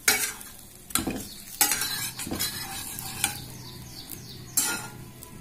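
Metal spatula scraping and knocking against a nonstick frying pan as buttered bread slices are flipped, several sharp strokes about a second apart. Under them a faint steady sizzle of the bread frying in butter.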